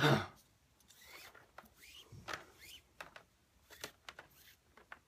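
Cord being pulled and tucked through the strands of a knot on a mandrel: faint rustling, short squeaky slides and small clicks, coming in scattered bursts after a brief loud sound at the very start.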